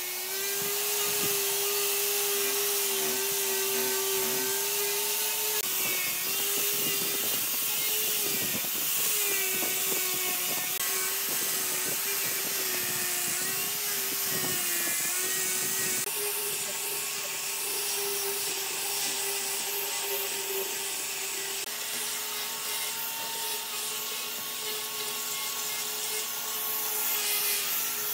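Angle grinder fitted with a sanding disc running steadily while the disc sands the face of a wooden tabletop: a constant motor whine over a rough rubbing hiss, the whine wavering slightly in pitch.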